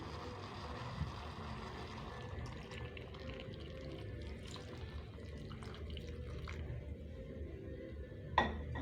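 Coconut milk being poured into a pot of cooked beans: a soft, steady liquid pour, with a sharp knock near the end.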